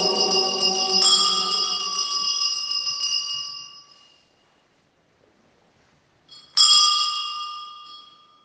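Altar bells rung at the elevation of the host during the consecration: a first ringing about a second in that fades over about three seconds, then a second ringing at about six and a half seconds that fades away again. Singing voices die out in the first two seconds.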